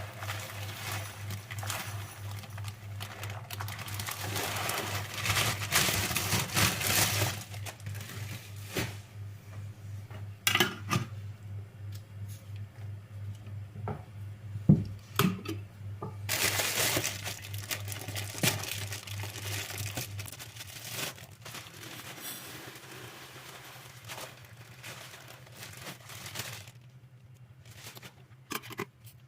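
Plastic packaging rustling and crinkling in bursts, with a few sharp clinks and taps of glass or hard containers in between. A steady low hum runs underneath and stops about two-thirds of the way in.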